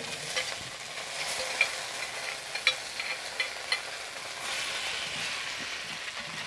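Chopped tomato, onion and serrano chiles sizzling as they hit hot oil in a clay cazuela. A spoon clinks against the bowl several times as the last of the vegetables are scraped in, and the stirring then stirs up the sizzle.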